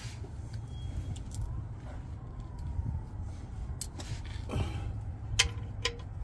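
Steady low background rumble. Near the end come a couple of small sharp metallic clicks with a brief ring as a gloved hand handles the oil drain plug and crush washer under the car.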